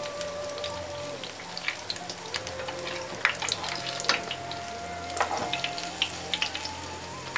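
Batter-coated potato slices shallow-frying in hot oil in a non-stick pan: the oil sizzles with irregular crackles and pops. A soft tune of long held notes plays underneath.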